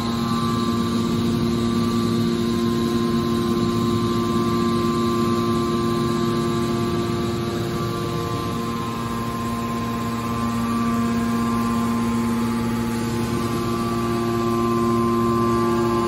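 Hydraulic metal scrap baler running: a steady machine hum with a whine of several constant tones, dipping briefly about halfway through before building again.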